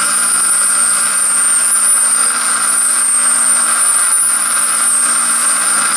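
Bench grinder grinding down the metal paddles of a small turbine drive wheel held against the stone: a steady, loud grinding with a high whine over it.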